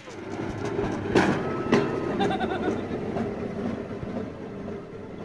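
Pedal-powered rail cart rolling past on its steel wheels along the track, a rumbling rolling noise with two sharp clacks a little after a second in. A short pitched call, voice-like, comes about two seconds in.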